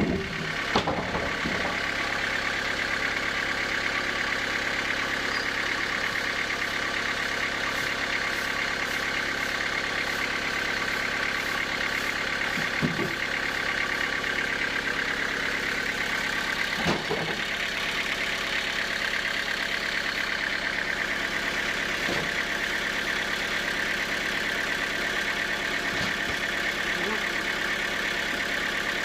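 Sawmill machinery running steadily, with a few single knocks of wood or metal.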